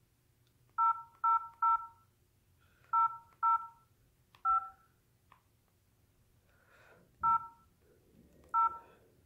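Keypad tones of an LG 442BG flip phone as its number keys are pressed to type a text note: eight short two-tone beeps, three in quick succession about a second in, two more around three seconds, then single beeps spaced out to the end.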